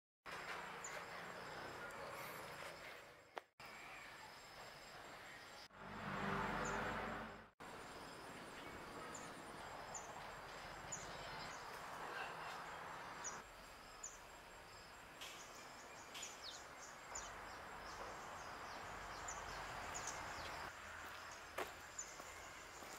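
Faint outdoor ambience: a steady hiss of background noise with many short bird chirps, and a brief louder swell of noise about six seconds in. The sound drops out for a moment twice, around three and a half and seven and a half seconds in.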